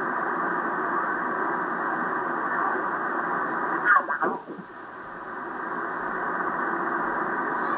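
Drake R-4C tube receiver's audio while being tuned down the 40-meter band: steady band noise, with a whistle that sweeps quickly down in pitch about four seconds in as the dial passes a signal. The noise then drops briefly and swells back.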